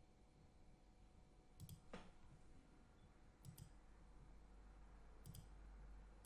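Faint computer mouse double-clicks, three pairs about two seconds apart, over near-silent room tone.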